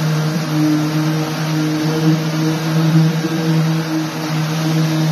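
Round-pad electric drywall sander with a dust-extraction hose running against a patched wall: a steady motor hum with the hiss of abrasive and air drawn through the hose.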